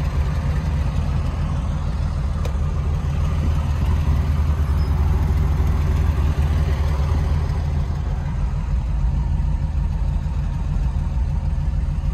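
1997 Porsche 993's air-cooled flat-six engine idling steadily.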